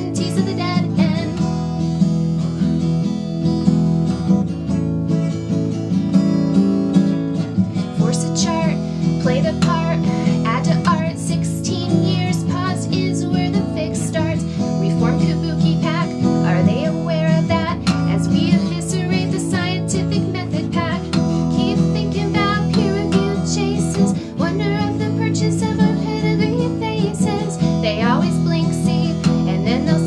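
Acoustic guitar strummed steadily, with a woman singing over it.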